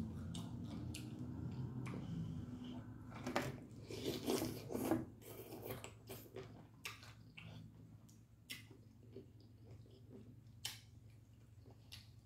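Close-miked chewing and wet lip smacks of a person eating sauce-covered food. The smacking is loudest a few seconds in, then thins to scattered smaller smacks.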